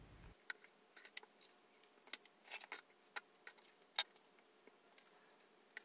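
Paper cutouts being handled on a cutting mat and sketchbook: a faint scatter of small, irregular clicks and paper rustles, the sharpest about four seconds in.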